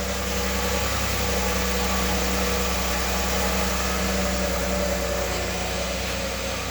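2017 Chevrolet Silverado engine idling steadily, running again after its fuel pump assembly was replaced to cure a no-start.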